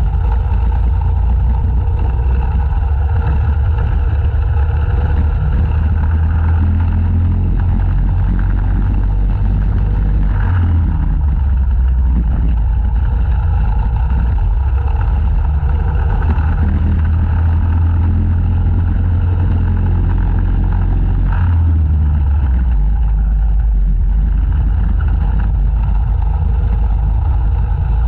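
Racing go-kart engine running hard at speed on track, heard from onboard. Its note changes briefly about ten seconds in and again about twenty-one seconds in, as the kart slows and speeds up through the corners.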